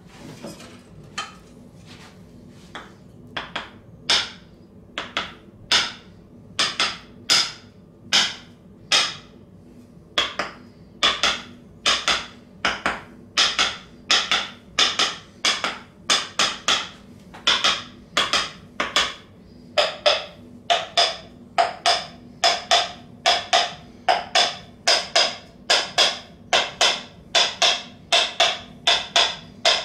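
Hands striking a body in a percussive slapping and chopping massage. The strikes are sparse at first, then come about two a second, often in quick pairs.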